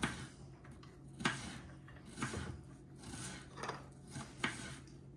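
Short sharp metal clicks and knocks, about a second apart, as a stainless-steel Browne hand-crank pasta machine is handled and its parts fitted together.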